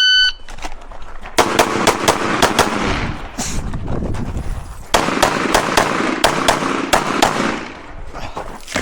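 Shot-timer start beep, then a Glock 17 9mm pistol fired in quick strings through a USPSA stage. The first shot comes about a second and a half after the beep, there is a short lull around the middle, and then more rapid shots follow.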